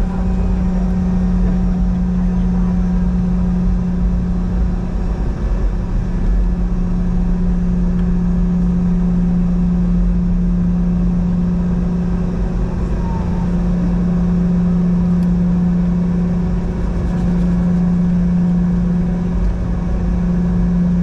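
Steady vehicle drone: a constant low hum with fainter overtones above it over a low rumble, holding even throughout.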